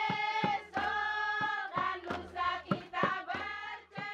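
A group of women singing together in long held, chant-like phrases, with sharp percussive beats underneath.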